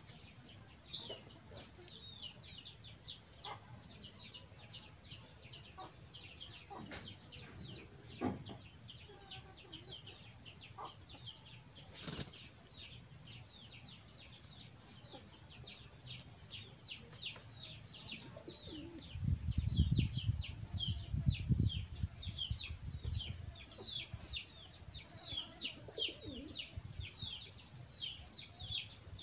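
Outdoor ambience: a steady high-pitched insect drone with many quick falling chirps over it, and a few seconds of loud low rumble about two-thirds of the way through.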